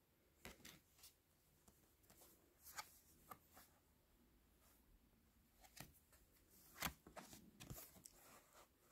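Faint handling of oracle cards: a few soft clicks and slides as stiff cards are picked up, swapped and laid down one at a time, with near silence between.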